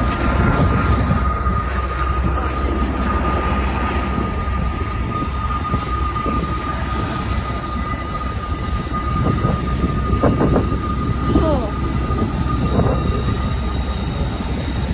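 Freight train hauled by Norfolk Southern diesel locomotives rounding a sharp curve: a steady low rumble of engines and cars, with a continuous high-pitched wheel squeal from the curve.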